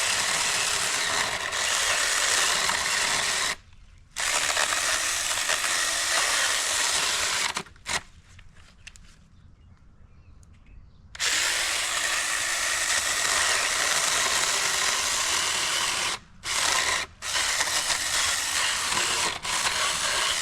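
Cordless 20-volt Saker mini chainsaw running and cutting a branch of dry, dead wood. It stops briefly about four seconds in, goes quiet for about three seconds around the middle, then starts again, with two more short breaks later on.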